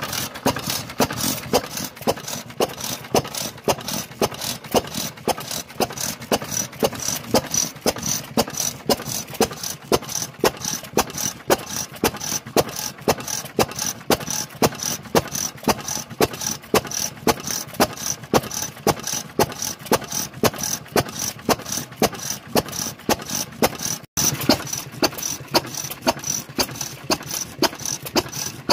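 Vintage Takahashi Seisakusho 'Karui'-type stationary oil engine running slowly and steadily, making an even, rhythmic knocking clatter of about three beats a second. The sound cuts out for an instant near the end.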